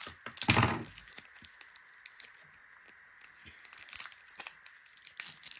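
Scissors cutting open a foil Pokémon booster pack, with a loud crackling snip about half a second in, then the foil wrapper crinkling and the cards rustling as they are pulled out.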